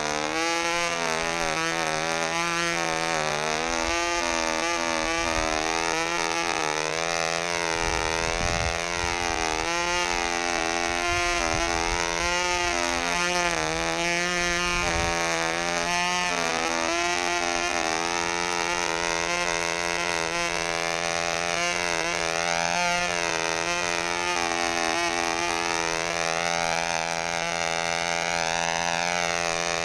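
Fox .35 two-stroke glow engine of a Sig Spad-7 control-line model running flat out in flight. Its high buzzing pitch rises and falls over and over as the plane circles.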